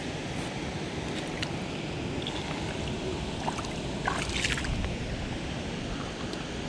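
Wind on the microphone and lake water lapping at the shoreline, a steady noise with a few faint clicks.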